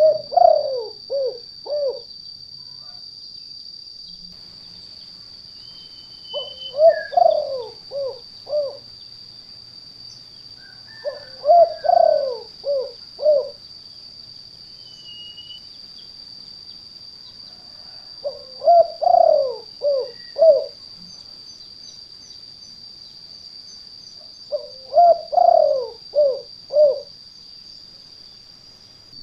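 Spotted dove (tekukur) cooing, a recorded lure call: five phrases, each a longer rising-and-falling coo followed by about three short notes, with gaps of several seconds between. A steady high-pitched whine runs underneath.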